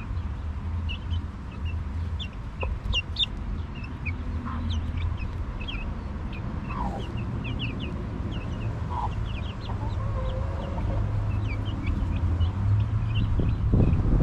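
Chicks peeping throughout in many short, high chirps, with a few lower clucks from the mother hen. A steady low rumble lies underneath.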